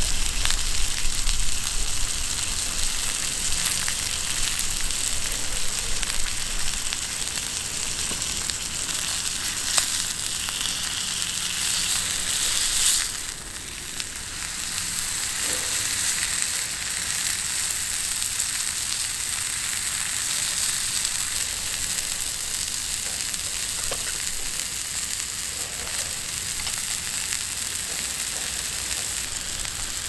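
Steak frying in olive oil in a cast-iron skillet, a steady sizzle that eases briefly about halfway through and then resumes.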